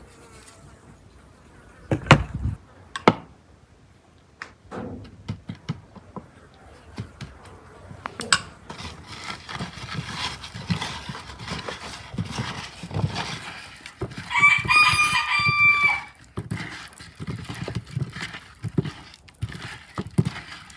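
A rooster crowing once, a long call of about a second and a half, about fourteen seconds in, and the loudest sound here. Before it come two sharp knocks, then the rubbing and clicking of hands working spice paste into peeled potatoes in a wooden bowl.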